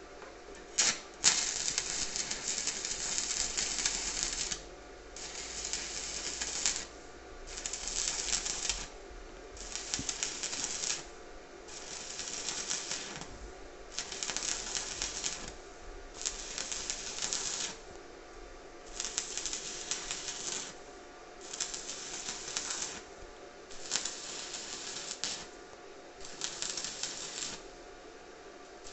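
Stick-welding arc from a 2.5 mm electrode on 2 mm sheet at about 60 amps, fed by a Daniu MINI MMA-200 inverter welder: two sharp cracks as the arc strikes about a second in, then about eleven crackling runs of one to two seconds each, broken off between them. The bead is laid in short stitches because a continuous run with the 2.5 mm electrode would burn through the thin sheet.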